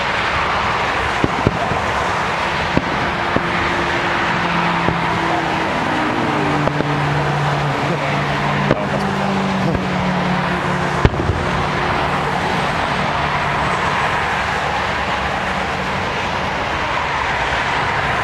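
Distant aerial fireworks bursting as scattered sharp pops, over a steady wash of road traffic noise, with a vehicle engine droning and shifting pitch through the middle stretch.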